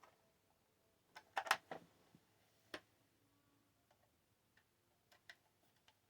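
Light clicks and taps of small hard parts being handled: a quick cluster of clicks about a second and a half in, a single click near three seconds, then a few fainter ticks.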